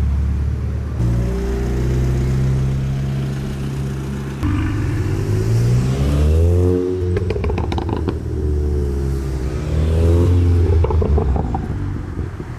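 Modified car engines revving as the cars pull in, rising and falling in pitch twice, with a quick run of sharp crackles about seven seconds in. One of them is a turbocharged Renault Clio.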